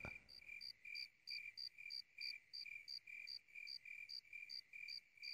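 Faint cricket chirping: short high chirps in an even run, about three a second.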